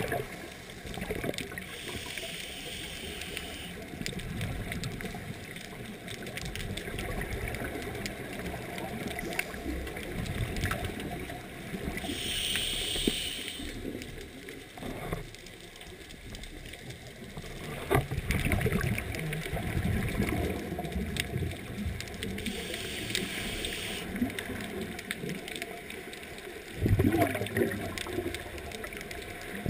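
Scuba regulator breathing heard underwater: three hissing inhales about ten seconds apart, with gurgling, bubbling rushes of exhaled air in between.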